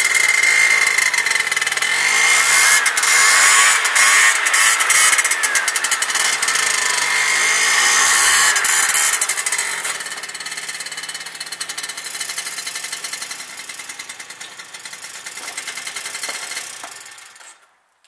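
Tuned 50cc two-stroke scooter with a Yasuni Z exhaust running hard and revving up and down while being ridden, with a high whine over the engine note. It grows quieter from about halfway and fades out near the end.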